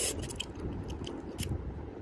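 Eating instant ramyun noodles with chopsticks: a short slurp right at the start, then a few light clicks and wet noodle sounds, over a steady low rumble in the background.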